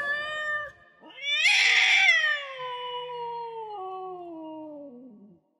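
A cat's long meow that rises quickly and then slides slowly down in pitch for about four seconds, beginning about a second in, just after a short held note.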